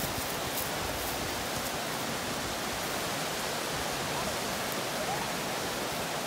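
Steady rushing of flowing stream water, an even, unbroken hiss.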